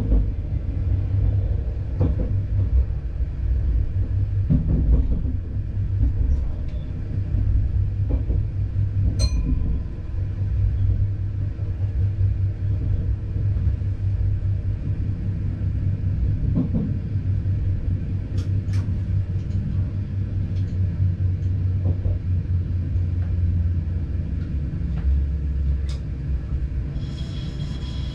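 Train running on rails, heard from the driver's cab as it comes into a station: a steady low rumble with scattered clicks and knocks from the track. Near the end the rumble's note drops lower and a short high-pitched sound is heard.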